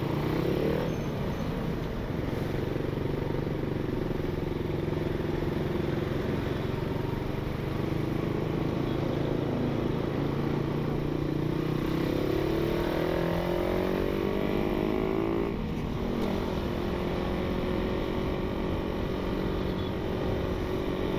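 Motorcycle engine heard from the rider's seat while riding in traffic. It speeds up gradually for several seconds, drops off abruptly about three-quarters of the way through, then runs steadily.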